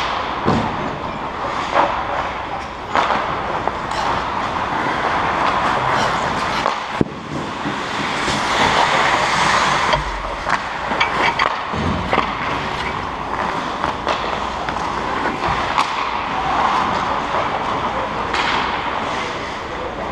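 Ice hockey skates scraping and gliding on rink ice, with frequent sharp clacks of sticks and puck, echoing in the arena.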